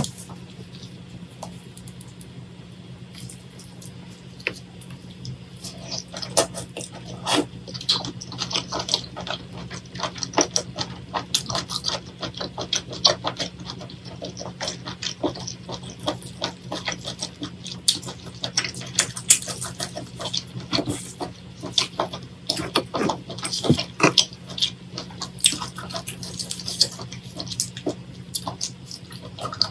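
Wet, sticky squelching and clicking as plastic-gloved hands pull apart sauce-coated octopus and seafood: many short, irregular smacks that grow busier a few seconds in, over a steady low hum.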